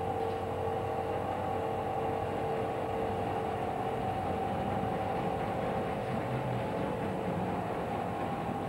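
Steady mechanical-sounding drone: a low rumble with two constant humming tones, unchanging throughout.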